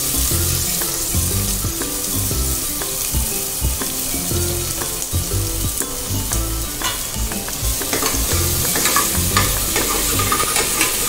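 Chopped onions sizzling steadily as they fry in hot oil in a pressure-cooker pot. In the second half there are frequent clinks and scrapes of a spoon stirring against the pot.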